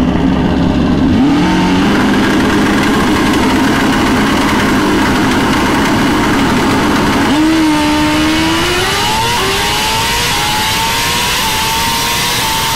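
Turbocharged Suzuki GSX-R1000 drag bike's engine on the start line. It rises about a second in to a steady held rpm, then launches about seven seconds in, its pitch climbing in steps as it goes up through the gears.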